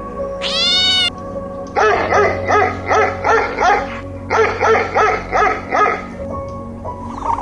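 An animal calling: one drawn-out call about half a second in, then two runs of short, quick calls at about four a second, over background music.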